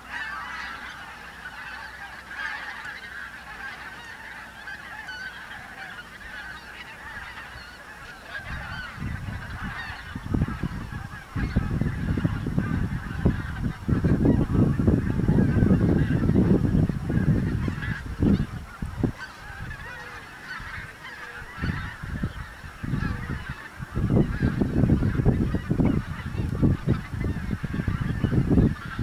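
A large flock of wild geese honking in flight, a continuous chorus of overlapping calls. From about ten seconds in, a loud, irregular low rumble comes and goes and at times drowns out the calls.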